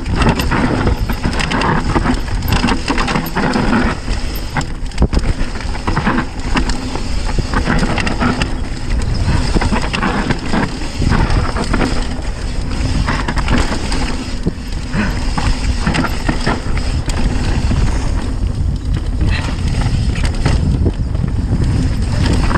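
Mountain bike descending a dirt forest trail at speed: heavy wind buffeting on the microphone over tyre noise on dirt, with frequent rattles and knocks from the bike over bumps.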